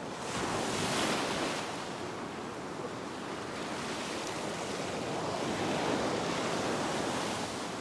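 Ocean surf breaking and washing up a sandy beach. It swells about a second in and again from about five to seven seconds in.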